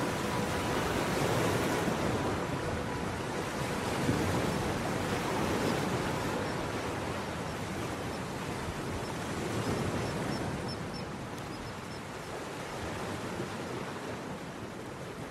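A steady, surf-like wash of noise that slowly fades, with a faint held tone in the first few seconds that dies away.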